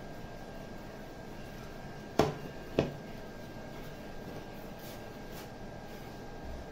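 Two sharp knocks of a ceramic plate, about half a second apart, each with a short ring, over a faint steady room hum with a thin high tone.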